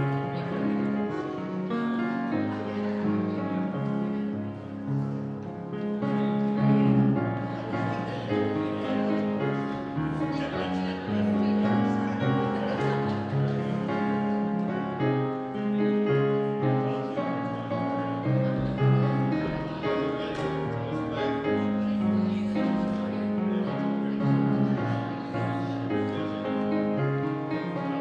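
Piano music played live, sustained notes and chords moving at an unhurried pace, with people talking beneath it.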